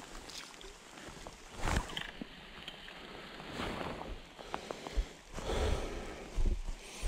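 River water sloshing and splashing around a wading angler in irregular surges, with scattered small knocks.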